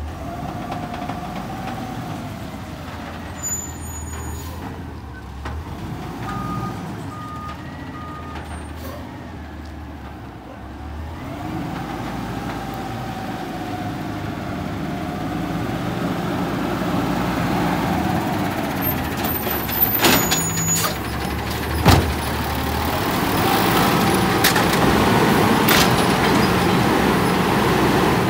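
Automated side-loader garbage truck's engine running as it drives up and pulls in close, growing louder in the second half. Three short reversing beeps sound about seven seconds in. Sharp air-brake hisses come about 20 and 22 seconds in as it stops.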